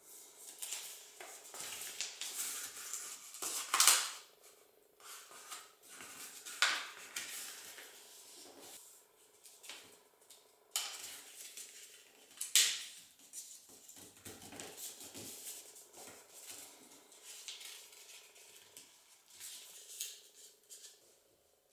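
A square sheet of paper being folded and creased by hand into an origami crane: irregular rustling and crinkling, with several sharp crackles as folds are pressed down.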